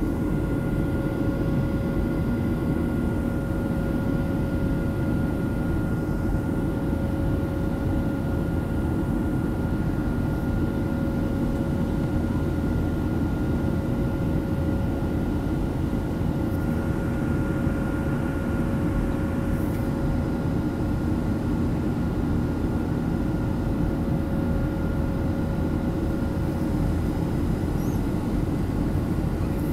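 Cabin noise of a Boeing 737-700 in flight, heard from a window seat over the wing: the steady roar of its CFM56 turbofan engines and the airflow, with a couple of faint steady tones over it.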